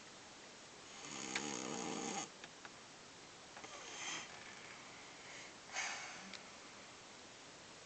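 Snoring: three rough snoring breaths about two seconds apart, the first the longest and loudest, with a rattling low part and a hissing top.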